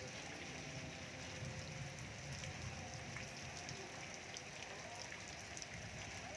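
Steady rain falling, with many small drops ticking on nearby surfaces.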